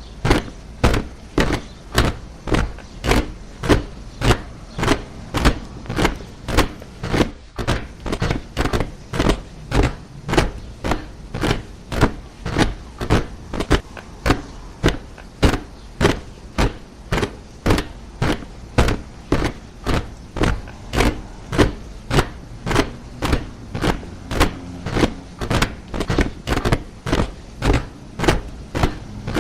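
Soldiers marching in step, boots striking the ground in a steady rhythm of about two steps a second.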